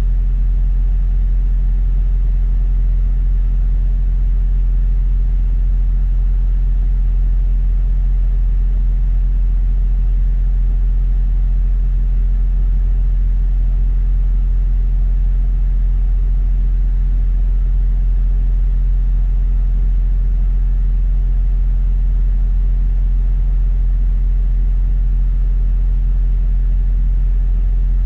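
London bus engine giving a steady low rumble, with no rise or fall in pitch or loudness.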